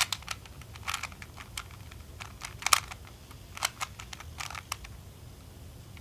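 A 3x3 Rubik's Cube's plastic layers being turned by hand through a solving algorithm, one move after another: a run of short, sharp clicks at uneven spacing, about two a second.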